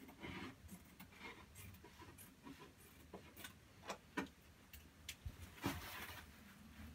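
Faint rustling of wallpaper being handled and fitted by hand, with scattered small clicks and taps and a louder rustle near the end.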